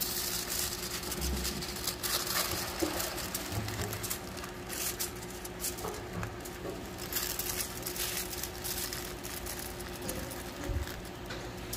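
Aluminium foil crinkling in short, irregular rustles as it is folded and pressed by hand into a parcel, over a faint steady hum.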